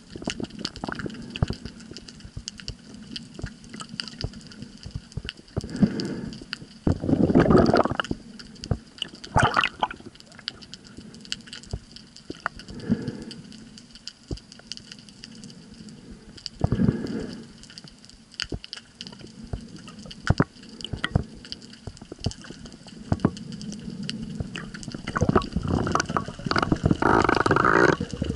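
Underwater water noise as a spearfisher swims: frequent small clicks and knocks, with several louder rushes of moving water, the longest over the last few seconds.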